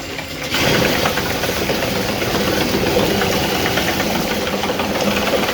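Small electric motor of a 3D-printed outboard motor prototype running steadily, its propeller churning and splashing water; it steps up in level about half a second in.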